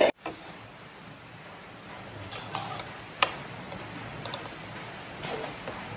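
Stainless steel ladle clinking against a ceramic bowl and the metal pot as soup is served: a few sharp clicks and scrapes, the loudest a little past the middle, over a steady hiss.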